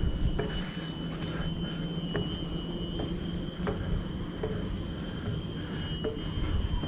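Steady, high-pitched drone of forest insects, with irregular soft footsteps on the trail.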